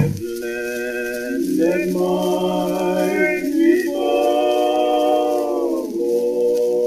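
Unaccompanied voices singing a slow melody in long held notes, with the pitch changing every second or two.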